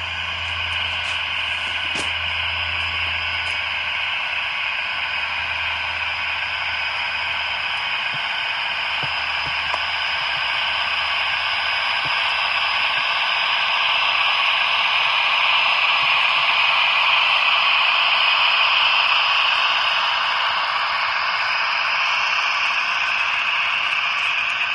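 HO-scale model freight train running on track. The Roco ÖBB 2043 diesel model's ESU sound decoder gives a low engine hum that fades out about halfway. Under it is a steady hissing rattle of loaded ore wagons rolling on the rails, loudest a little past the middle.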